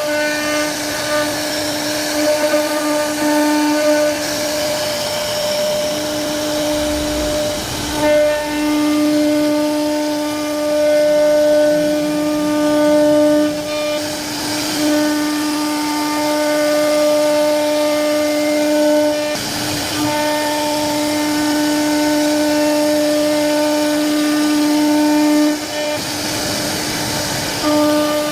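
CNC router spindle carving wood: a steady high whine with cutting noise, which breaks briefly every few seconds as the cutter moves through the wood.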